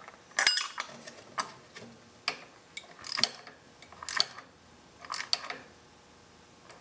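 Socket ratchet clicking in about six short bursts, roughly a second apart, as the handle is swung back between strokes. It is turning an end-cap oil filter wrench to give a new oil filter its last three-quarter turn of tightening.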